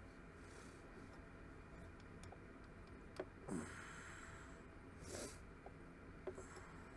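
Mostly quiet, with a few light clicks and two short scraping sounds, about three and a half and five seconds in, as a small hand tool works at the brass guard and handle of a hand-forged knife.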